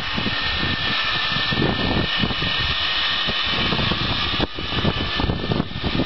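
Electric induction motor running: a steady whine over a rushing noise, briefly broken about four and a half seconds in.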